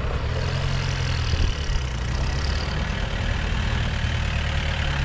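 Isuzu V-Cross pickup's diesel engine running steadily at a low, even pitch.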